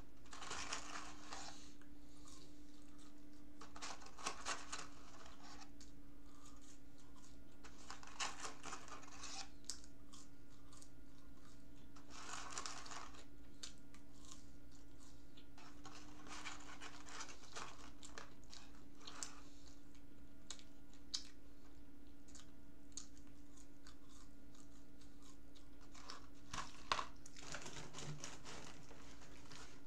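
Paper McDonald's fries carton rustling and crinkling in the hands, mixed with chewing of fries, in short bursts every few seconds.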